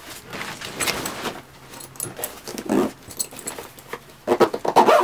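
Handling noise from a padded foil bag: foam and fabric rustling, with light scrapes and knocks, as a carbon foil mast is pressed into the bag's foam insert and the bag is closed. A denser run of quick rasps comes near the end and is the loudest part.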